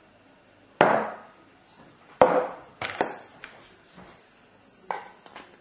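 A series of hard knocks and clinks of tableware on a granite worktop, each ringing off briefly, as a pint glass of beer is set down beside a ceramic plate.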